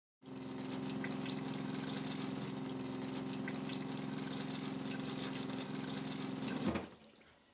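Dometic Sealand RV toilet flushing: rinse water rushes into the bowl with a steady hum beneath it for about six and a half seconds, then cuts off.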